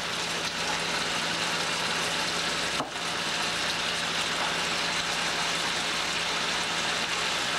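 Diced chicken frying in oil in a skillet: a steady sizzle, with a low steady hum underneath.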